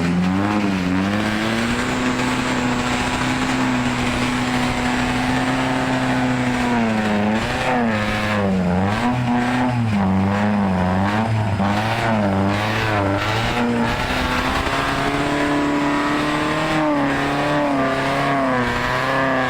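Car engine running hard at high revs: held steady at first, then rising and falling repeatedly for several seconds in the middle, then held steady again.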